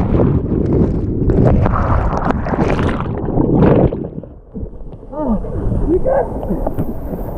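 Whitewater churning and splashing around a raft, heard muffled. Muffled shouts rise and fall in the second half.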